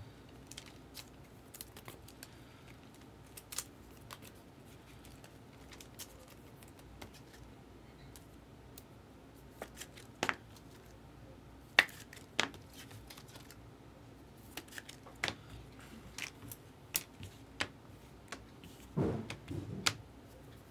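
Light handling of plastic trading-card holders: scattered sharp clicks and faint rustles as a card is slid into a soft sleeve and rigid toploader. A brief low voice sound, like a hum or mumble, comes near the end.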